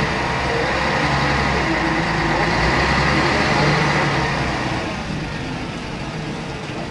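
Scania K113CRB bus's rear-mounted 11-litre six-cylinder diesel engine, heard from the back seats, running under load with a steady low drone. It eases off about five seconds in and gets quieter.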